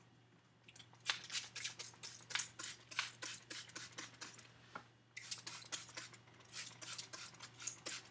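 Hand-pump trigger spray bottle of water misting onto curly hair: quick squirts, about four a second, in two runs with a short break about five seconds in.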